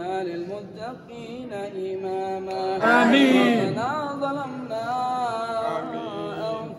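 A man's voice chanting an Arabic prayer in a melodic, drawn-out recitation, holding long notes; a louder phrase about three seconds in falls away in pitch.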